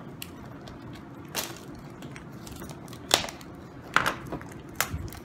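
Small cardboard Funko Mystery Minis blind boxes being handled and opened: a handful of sharp clicks, taps and rustles of cardboard and paper, the loudest about three seconds in.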